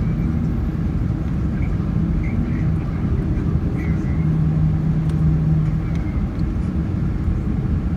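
Steady low rumble of a Boeing 767's engines and rushing air heard inside the passenger cabin on the landing approach. A low hum sits in the rumble and grows louder for a couple of seconds around the middle.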